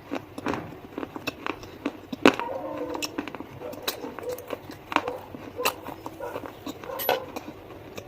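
Slate stone being bitten and crunched close up: about a dozen sharp, separate crunches.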